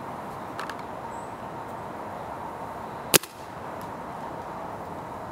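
A single shot from a Clone GT paintball marker: one sharp crack about three seconds in, fired into the air without striking a target, over a steady background hiss.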